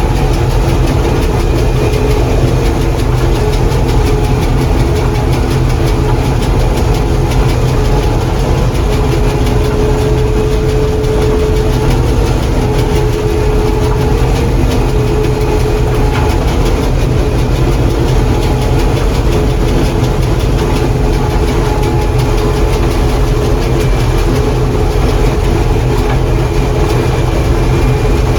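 John Deere 4400 combine running steadily under load while harvesting corn, heard from inside the cab: a loud, constant rumble with a steady whine over it.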